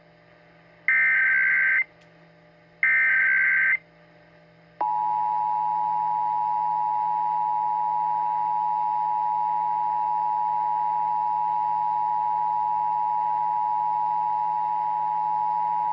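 Emergency Alert System tones. First comes the end of one burst of shrill digital data screech, then two more bursts of about a second each, a second apart: the SAME header that opens an alert. About five seconds in, the steady two-tone 853/960 Hz attention signal starts and holds.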